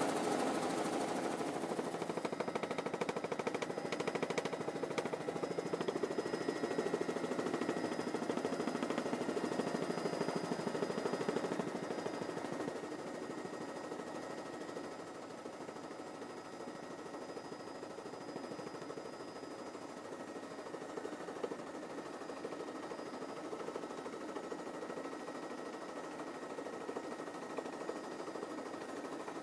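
Helicopter heard from inside the cabin: a rapid, even chop of the rotor blades over a steady whine. The noise drops a little about halfway through.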